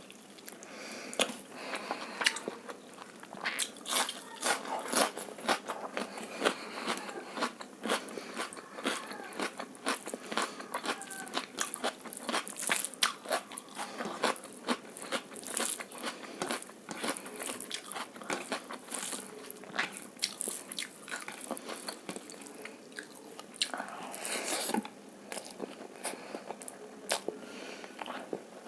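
Close-miked eating: a person chewing and biting egg fried rice and chilli chicken, with many quick, irregular crunchy and wet mouth clicks.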